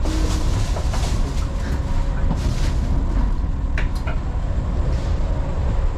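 Running noise inside a JR 381 series electric train carriage at speed: a steady, loud rumble of wheels on rail, with two sharp clicks a little after halfway through.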